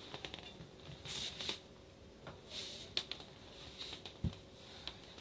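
Handling noises as small engines are lifted and set down on a turntable: rustling and sliding, light clicks and knocks, and a single dull thump about four seconds in.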